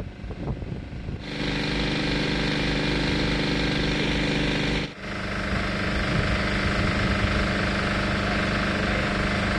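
A vehicle engine idling steadily, starting about a second in; near five seconds it cuts off abruptly and another steady engine-like running sound takes over.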